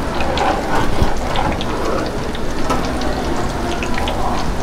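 Food frying in hot oil: a steady sizzling hiss with many small scattered crackles.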